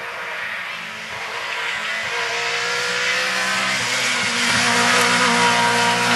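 A rally car's engine running hard at high revs, getting steadily louder as the car approaches at speed, loudest about five seconds in.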